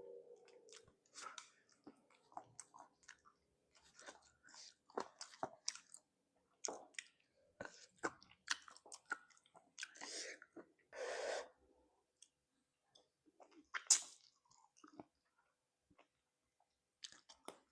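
A person chewing spicy chicken feet close to the microphone: many short, irregular wet clicks and smacks, with a longer noisy stretch of chewing about ten to eleven seconds in.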